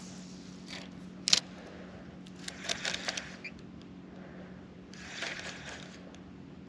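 Quiet handling of a fishing rod and reel: a sharp click about a second in, then soft rustling and scraping twice, over a faint steady hum.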